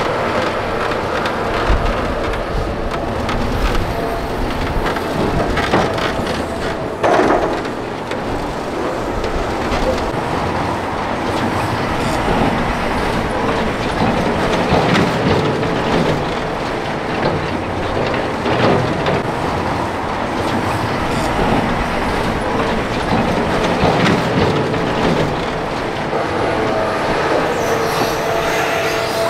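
Heavy earthmoving machinery at work: diesel engine noise with continuous rattling and clanking metal, and a loud clank about seven seconds in.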